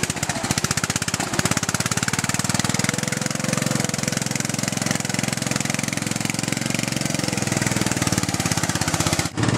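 Briggs & Stratton 16.5 HP I/C engine of an off-road Craftsman LT1000 lawn tractor running steadily under load as the tractor drives through mud, with a rapid, even firing pulse. The sound cuts out briefly near the end.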